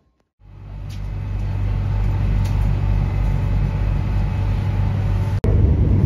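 Airport Rail Link train running: a loud, steady low rumble that builds up about half a second in. It cuts out for an instant near the end and comes back louder.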